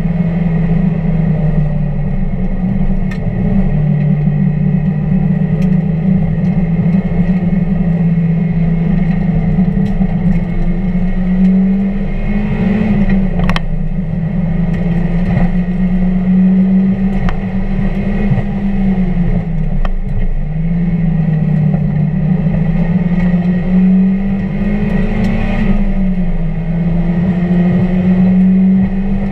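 1999 Mazda Miata's four-cylinder engine driven hard on track, its pitch climbing steadily under acceleration and dropping back several times as the car lifts and slows for corners.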